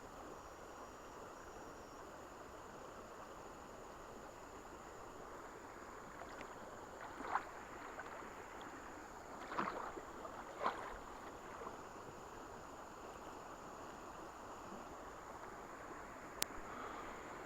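Steady faint rush of flowing river water around a small boat. A few short knocks stand out in the middle, and a single sharp click comes near the end.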